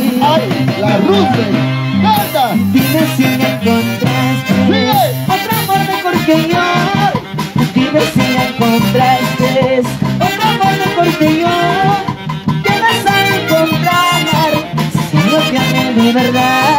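Andean orquesta típica playing a huayno live: saxophones and clarinets carry the melody over a steady drum beat and bass.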